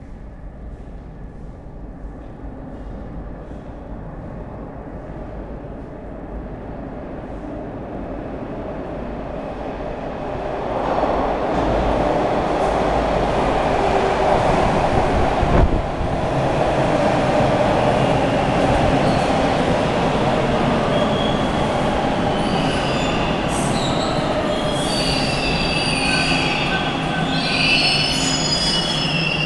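Toronto subway T1 train pulling into an underground station. A rumble builds as it approaches and runs loud from about ten seconds in. Over the last several seconds high, shifting squeals come in as the train brakes to a stop.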